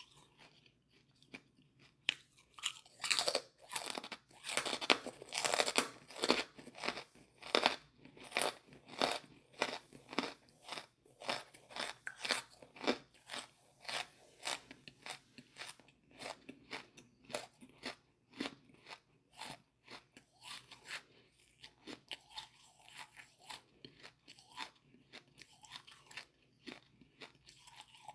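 Charcoal being bitten and chewed in the mouth: a steady run of crisp crunches that starts about two seconds in and grows softer in the second half.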